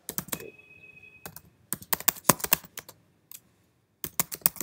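Typing on a computer keyboard: quick runs of keystrokes in three bursts, the longest and loudest about two seconds in, with short pauses between.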